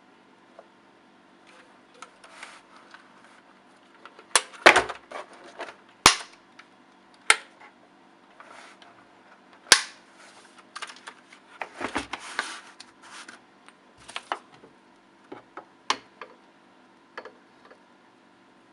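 Brown-switch mechanical keyboard keys being pressed and released in an irregular run of clacks, a few of them much sharper and louder than the rest, with a busier flurry of keystrokes past the middle.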